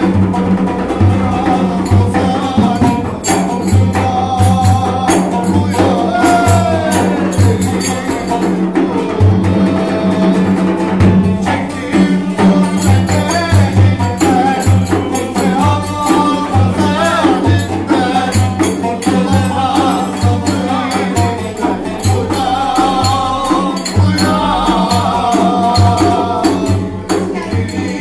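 Turkish folk dance music (oyun havası) played live: a man sings over a strummed banjo-like lute and a large double-headed drum beaten by hand in a steady, driving rhythm.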